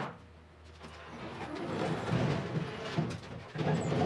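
Wooden rotisserie wings bolted to a bare Triumph TR6 body shell rolling and scraping over a concrete floor as the body is tipped over by hand. The rumble builds about a second in and is loudest near the end.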